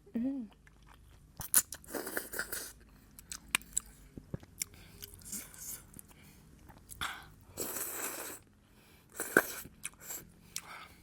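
Close-miked eating sounds of a person chewing thukpa noodle soup and momo dumplings: wet mouth clicks and several longer noisy bursts. There is a brief hummed sound right at the start.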